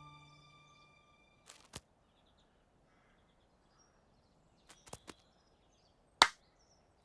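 A music cue dying away, then near silence broken by a few faint ticks and one sharp, loud click about six seconds in.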